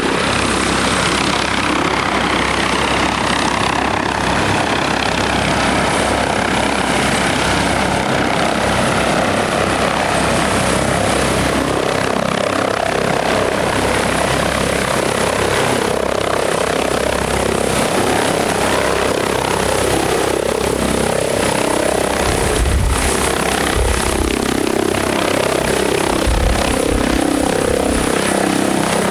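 Turbine helicopter flying past, its whine falling in pitch over the first several seconds as it goes by, then steady rotor and engine noise. A few low rumbles come in near the end.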